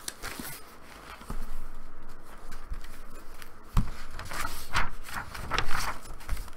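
Paper rustling and scraping as paper booklets are handled and pages of a large book are turned, with a few dull knocks from the book being moved.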